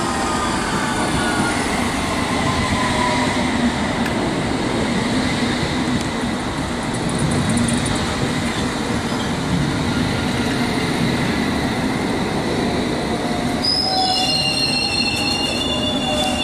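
A train running on the line: a steady rumble of wheels on rail, a whine falling in pitch over the first few seconds, and high, steady squealing tones from about three-quarters of the way through.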